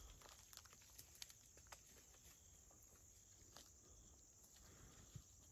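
Near silence: faint outdoor ambience with a few scattered light ticks.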